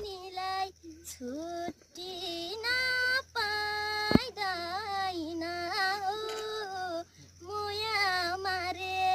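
A young girl singing a Nepali song solo, with long held notes that waver in pitch between short breaths. A short thump about four seconds in.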